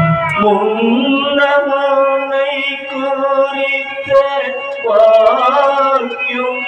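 A man singing a slow, chant-like melody in long held notes. His voice slides up into a new note about half a second in and again near five seconds.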